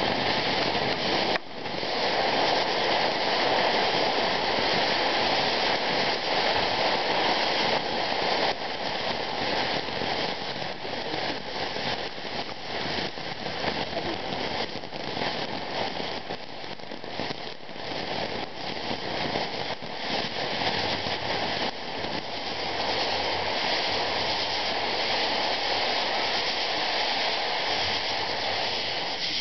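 Ground fountain fireworks spraying sparks: a steady, dense hiss full of fine crackles. The hiss drops out briefly about a second and a half in, then carries on.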